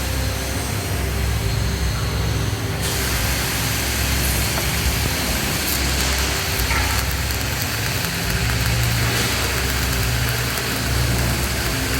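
Shielded metal arc (stick) welding with a 3.2 mm electrode: the arc gives a steady crackling hiss over a low steady hum. The high part of the hiss shifts about three seconds in.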